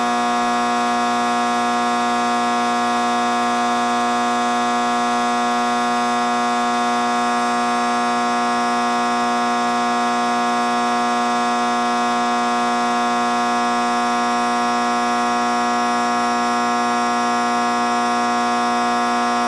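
A loud, steady buzzing tone held at one pitch, with no change in pitch or level.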